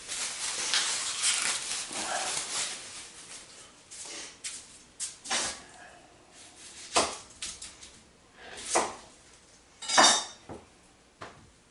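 An onion being handled and cut on a cutting board: a few seconds of papery rustling, then half a dozen separate knife strokes and knocks at irregular intervals.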